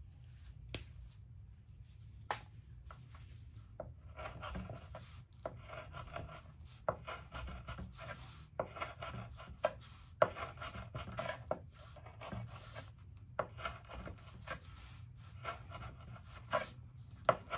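Benchmade Claymore automatic knife's D2 blade cutting 550 paracord into short pieces against a wooden board: a run of irregular sharp clicks as cuts go through and the blade meets the wood, with rasping as the cord is sawn and handled in gloved hands.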